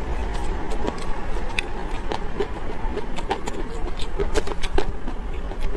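A person chewing food, with irregular clicks of mouth sounds, over a steady low rumble.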